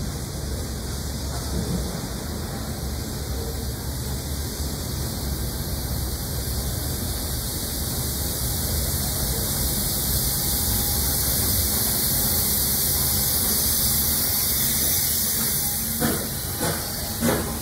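NSWGR C38-class streamlined steam locomotive 3801 drifting slowly into the platform: a steady hiss of steam over a low rumble, the hiss growing louder as the engine draws alongside, with a few sharp knocks near the end.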